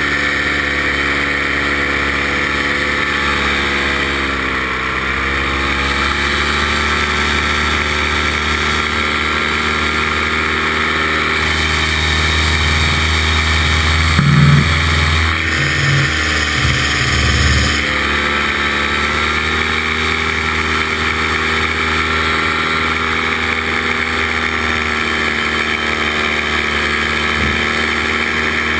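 Paramotor engine and propeller running steadily in flight. The pitch dips briefly about four seconds in as the throttle is eased, then comes back up, and falls again at the end. A few low thumps come near the middle.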